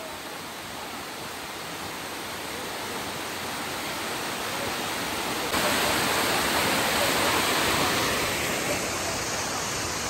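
Waterfall cascading over a sloping rock slab: a steady rush of water, growing louder and stepping up clearly about halfway through.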